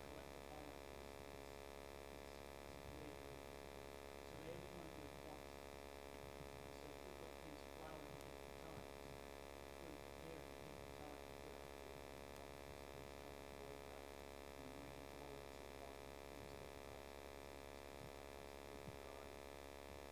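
Steady electrical mains hum from the sound system, under faint, indistinct distant speech.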